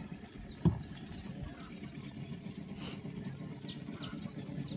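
Lakeshore birds calling in a chorus of short, quick, falling chirps over a steady high-pitched tone. A single dull thump just under a second in.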